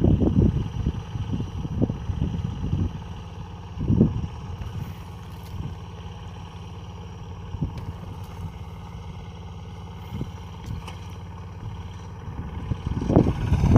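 Engine of a rice harvesting machine running steadily, with louder rough bursts at the start, about four seconds in, and near the end.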